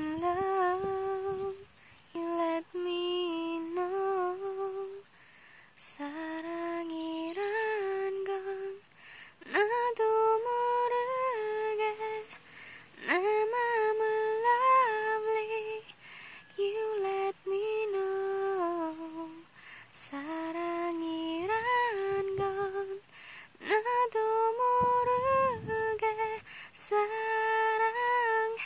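A woman humming a wordless tune in short melodic phrases with brief pauses between them. Three short sharp clicks come through, the last near the end the loudest.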